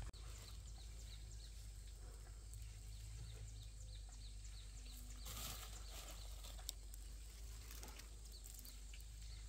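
Faint rural outdoor ambience: short high chirps repeating irregularly over a steady low hum, with a brief soft swell of noise about halfway through.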